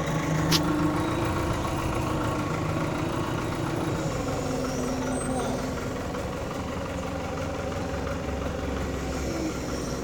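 Engine running steadily, its pitch dropping slightly about four seconds in, with a sharp click about half a second in.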